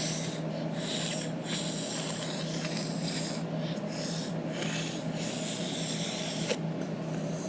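Puffs of breath blown through a cut, flattened drinking-straw reed that fails to sound, giving only airy hissing, about one puff a second, over a steady low hum.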